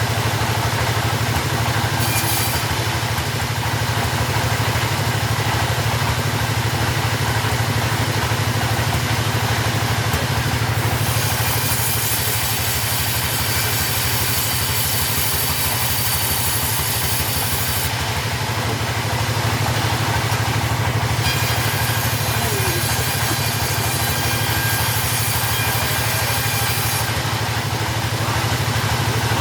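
Chainsaw engine running steadily at a constant speed, with a brighter hiss in two long stretches, from about a third of the way in and again after about two thirds.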